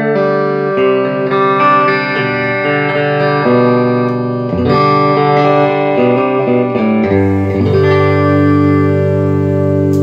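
Electric guitar played through a Vox AC30 CC2 valve amplifier, tested after a repair that renewed its filter caps and GZ34 rectifier. A run of changing notes and chords, then a chord left ringing from about seven seconds in.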